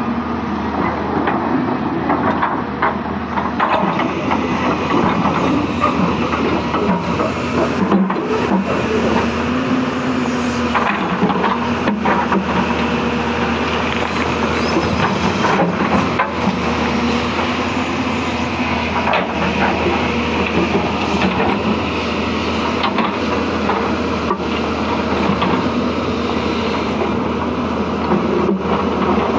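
Hyundai 220-9S crawler excavator's diesel engine running steadily under digging load, its note wavering slightly as the hydraulics work. Short knocks and scrapes come every few seconds as the bucket digs into rocky soil.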